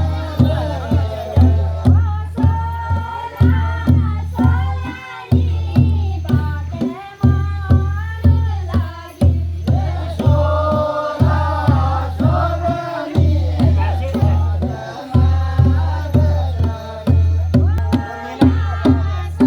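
Pahadi chanchari folk song: voices singing in long rising-and-falling phrases over a steady drum beat, about two beats a second.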